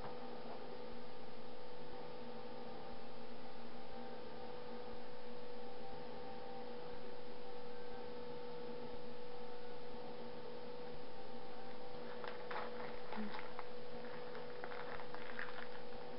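Steady electrical hum whose level swells slightly for about a second every two seconds. Near the end, a few faint crackling clicks.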